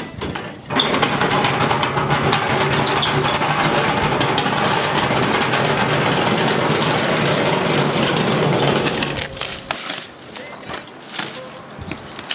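A steady mechanical rattling rumble that starts about a second in and runs for about eight seconds, then dies away.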